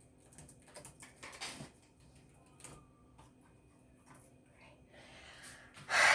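Handling noises from a shipping package being moved about: scattered taps, knocks and rustles, with a louder rustling scrape near the end.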